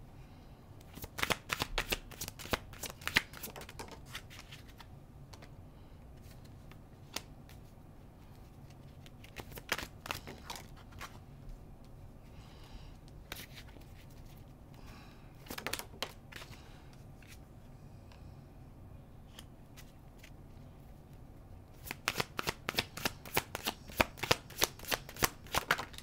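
A deck of tarot cards being shuffled by hand, in bursts of rapid flicking card clicks: one just after the start, a shorter one around ten seconds, a brief one around sixteen seconds, and a long run in the last four seconds.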